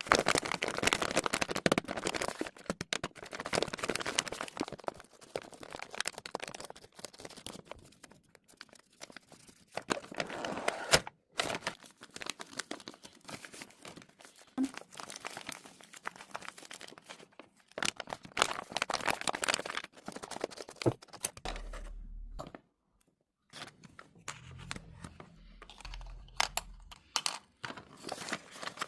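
A handmade paper blind bag being opened and unpacked: paper crinkling, rustling and tearing, with sharp little clicks, thick at first and then in shorter spells with pauses between.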